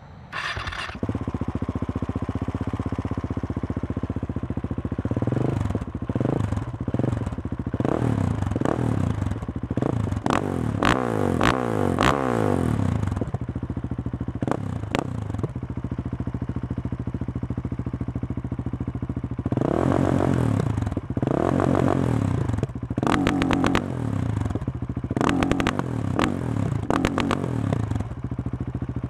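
2017 Husqvarna 701 Supermoto's single-cylinder engine, breathing through a Remus exhaust with no dB killer and no catalytic converter, starts about a second in and idles. It is then revved hard in repeated throttle blips, with exhaust pops and crackles as the revs drop. Loud.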